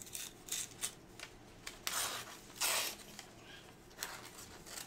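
Thin phone book paper rustling and being sliced with a folding knife: a string of short scratchy strokes, the longest and loudest about two and a half seconds in.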